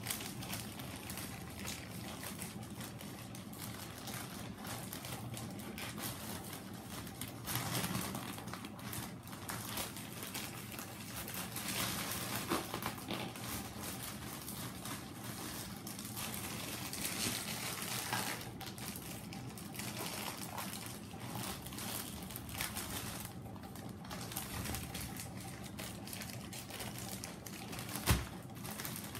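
Plastic courier mailer bag being torn open and handled, crinkling and rustling with many small irregular crackles, then a plastic-wrapped package inside it being handled. A single sharp thump near the end.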